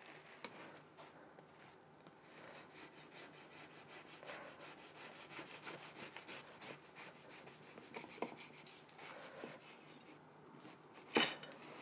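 Kitchen knife sawing back and forth through the crust and crumb of a freshly baked, still-hot spelt-oat loaf: faint, repeated rasping strokes. A sharp knock near the end.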